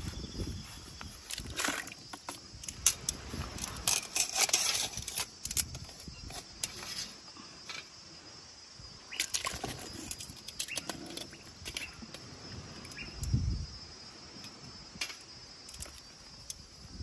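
Metal kitchen tongs clacking and scraping against cooked mud crab shells and a perforated metal strainer basket as the crabs are gripped and shifted: irregular clicks and knocks with a few dull thuds, one heavier thud about two-thirds of the way through.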